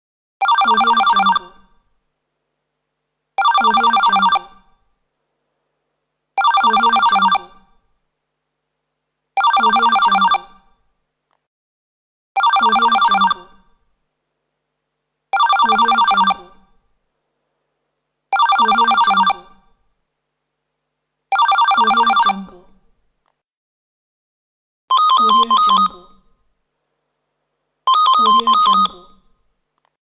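Telephone bell ringing in rings about a second long, ten times, about every three seconds with silence between. For the last two rings a different-sounding bell takes over.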